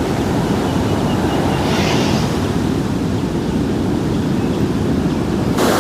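A steady low rushing of wind and surf. There is a short hiss about two seconds in, and a sudden louder rush just before the end.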